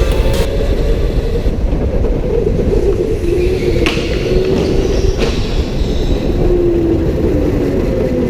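Electric racing go-karts running flat out, their motors giving a whine that wavers up and down in pitch over a rumble of tyres and chassis, with a couple of sharp knocks in the middle.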